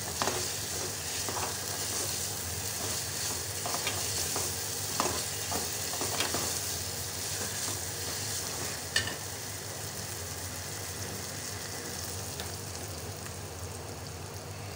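Capsicum and tomato masala sizzling in a pan over high heat while a steel spoon stirs it, with occasional scrapes and clicks of the spoon against the pan. The mix is being fried dry so that any leftover water cooks off.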